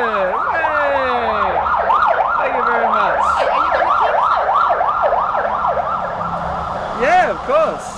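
Emergency vehicle siren sounding a rapid yelp, about four or five rise-and-fall sweeps a second. A dog howls along with it in long falling notes at the start and two short rising-and-falling howls near the end.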